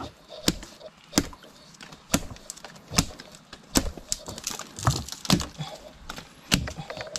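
Blade hacking at a mangrove prop root: a series of sharp, irregular knocks, roughly one a second, as the root is cut through.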